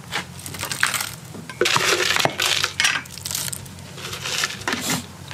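A metal spoon tossing a chopped green-mango salad in a plastic tub: irregular scraping rushes and sharp clinks, in several bursts.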